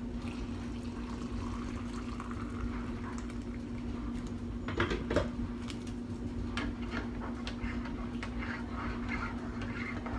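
Kitchen work sounds: scattered clinks and knocks of dishes and utensils over a steady hum, with two louder knocks about five seconds in.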